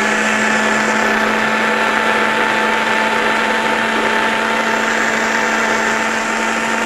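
Countertop blender motor running steadily at high speed, blending a thick cashew-and-coconut cream cheese with the lid on: a loud, even whir over a steady hum.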